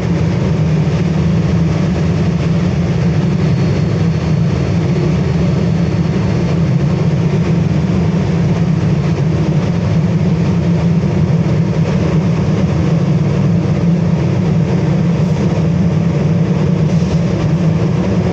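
LPG-fired aluminium melting furnace burner running, a loud, steady, low rumbling noise with no change in pitch.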